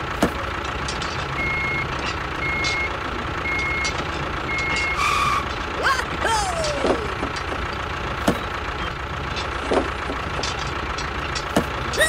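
Reversing-alarm style beeping, four short beeps about one a second in the first half, over a steady engine-like hum. A few short sliding chirps and scattered light clicks come later.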